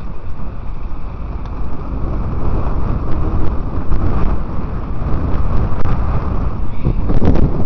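Wind buffeting the microphone of a moving bicycle rider, a steady low rumble that grows louder near the end, with a few faint clicks.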